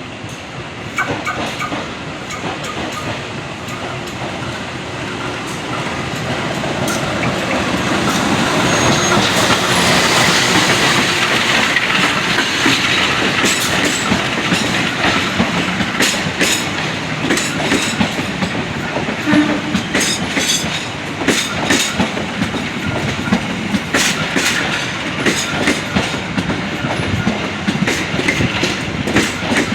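Train passing along the track, its running noise building over the first several seconds, then the wheels clacking over rail joints in a run of repeated clicks through the second half.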